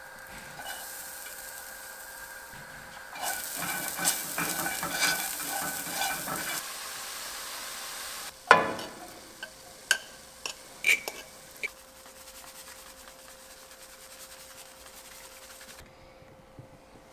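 Chopped walnuts toasting in a little oil in a frying pan: a steady sizzle, with a spatula stirring and scraping them around the pan for a few seconds. About halfway through comes one loud thump, then a few sharp knocks of utensils, and only a faint hiss near the end.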